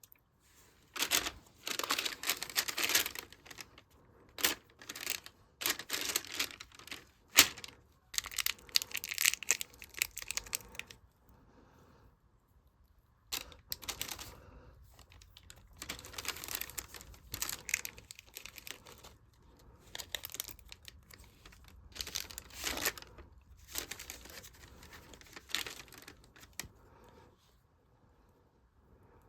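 Slime with beads mixed through it being squished and kneaded by hand, giving sticky crackling and popping in bursts. There is a short lull about 11 seconds in, and the sound stops a couple of seconds before the end.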